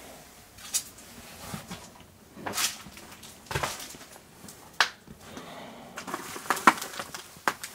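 A person moving about a cluttered, decaying room: irregular knocks, clicks and crunches of footsteps on debris and objects being handled, the sharpest about five seconds and seven seconds in.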